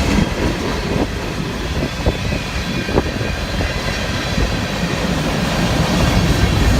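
Freight train cars rolling past: a steady rumble of steel wheels on rail, with a few clacks over the rail joints.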